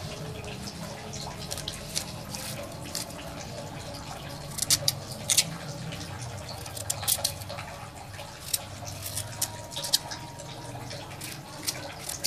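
Kitchen knife cutting boiled potato over chopped greens on a metal tray, the blade tapping the tray in irregular sharp clicks, most of them in the middle and latter part.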